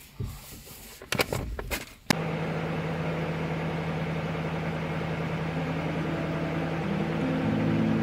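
A few quiet clicks and knocks, then from about two seconds in a steady car hum of engine and road noise. Acoustic guitar music comes in near the end.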